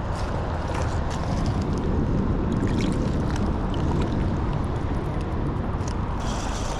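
Steady rushing noise of flowing river water, heaviest in the low end, with faint scattered ticks.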